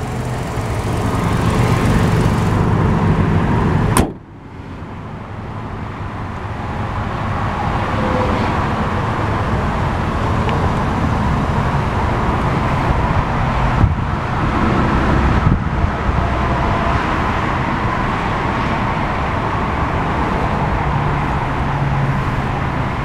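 Hyundai Elantra's 1.8-litre DOHC 16-valve inline-four idling steadily. The sound cuts off abruptly about four seconds in, then comes back and builds up over the next few seconds to a steady running sound.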